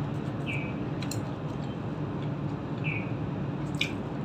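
A mouthful of fried cauliflower pakoda being chewed, with a few sharp mouth clicks over a steady low hum.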